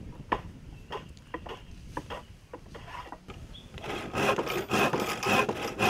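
Scattered knocks and clicks, then, about four seconds in, a hand saw starts cutting through a wooden plank in quick, even, louder strokes.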